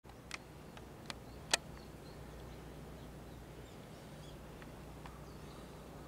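Quiet outdoor ambience: a steady low hum with faint, scattered bird chirps, and a few sharp clicks in the first two seconds, the loudest about a second and a half in.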